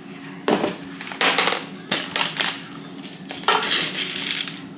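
A metal storage canister and a ceramic dog bowl handled on a stone countertop: the canister set down, its clamp lid opened and its contents reached into, giving four short bouts of clattering knocks and rattles.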